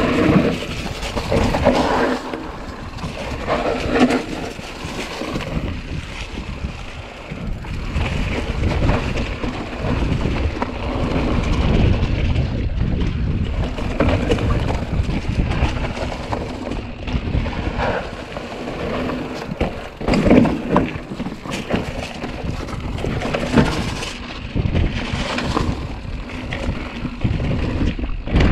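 Mountain bike ridden along a dry dirt trail: wind buffeting the microphone over the tyres rolling across dry bamboo leaves, dirt and rock, with irregular knocks from the bumps.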